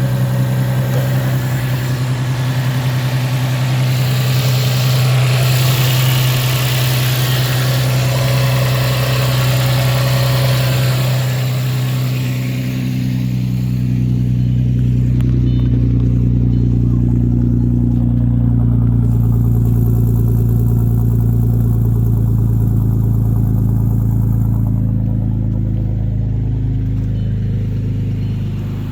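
Audi B5 S4's 2.7-litre twin-turbo V6 idling steadily on newly fitted 2.0T coil packs with an ICM delete, put in to cure a P0300 random misfire. About halfway through the sound grows deeper and the hiss fades.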